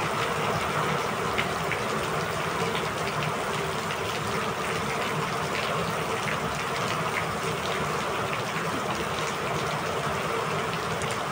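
Steady rain falling, an even rush of water with small drips spattering throughout.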